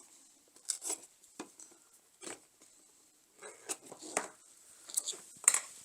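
Packaging being opened and handled: a string of short rustles, scrapes and light taps, busiest in the second half.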